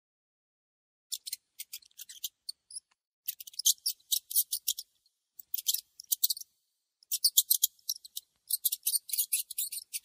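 A white dwarf hamster nibbling and crunching food held in its paws: rapid, crisp, high-pitched clicks in bursts. The bursts begin about a second in, with short pauses between them.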